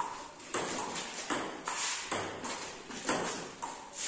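Table tennis rally: the ball is struck back and forth by the paddles and bounces on the table, about two hits a second, each hit echoing in a large bare hall.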